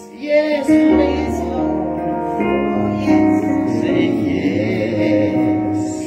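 Live gospel music: a woman's voice singing slowly with a wavering, held line over sustained keyboard chords, with a deep bass note held for a second or so near the start.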